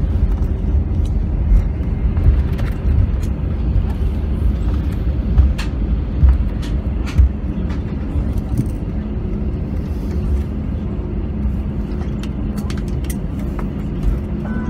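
Cabin noise of an Airbus A320 rolling along the taxiway after landing: a steady low rumble of engines and wheels, with a few thumps about five to seven seconds in.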